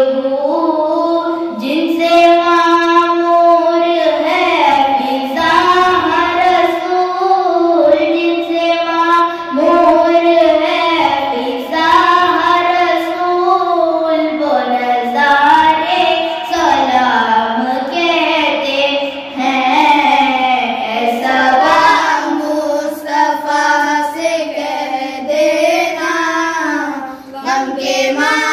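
A boy singing an Urdu devotional salam solo into a microphone, in long melismatic phrases with no instruments.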